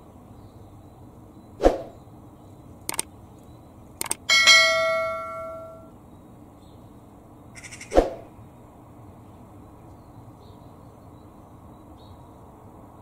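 Subscribe-button notification sound effect: a couple of mouse clicks, then a bright bell ding that rings and fades over about a second and a half. A dull thump comes about two seconds before it and another a few seconds after.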